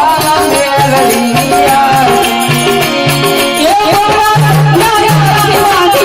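Gujarati devotional aarti music: harmonium melody with held notes over a steady beat of folk percussion and jingling rattles.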